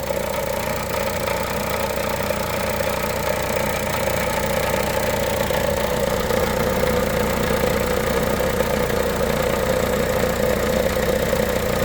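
2013 Buick Encore's 1.4-litre Ecotec four-cylinder engine idling steadily.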